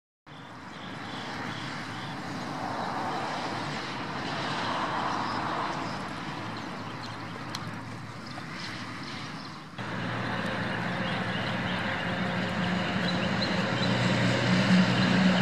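Outdoor traffic-like noise, then after a cut a nearby car engine idling with a steady low hum that grows louder toward the end.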